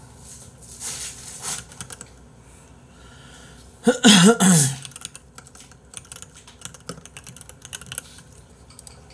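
Scattered computer-keyboard clicks and typing, and about four seconds in a short, loud fit of throaty coughs, three quick pulses behind a hand.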